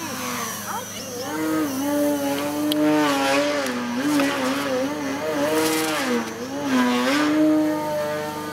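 Small quadcopter drone's motors and propellers buzzing in flight, the pitch rising and falling over and over as the throttle changes.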